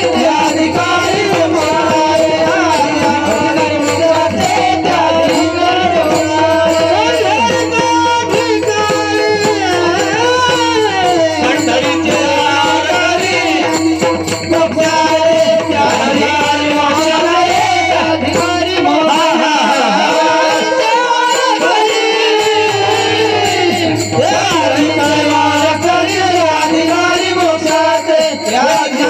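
Devotional kirtan refrain sung in chorus, with a harmonium holding steady notes under the voices, and drum and small hand cymbals keeping the beat.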